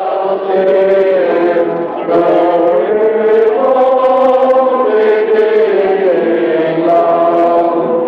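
A group of men singing together from song sheets, holding long notes that change pitch every second or two. The sound comes off an old 8mm film soundtrack and is dull and narrow.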